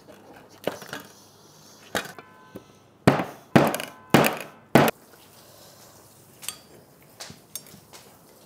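A series of sharp knocking blows: about six heavy ones in the first five seconds, one followed by a brief metallic ring, then a few lighter knocks.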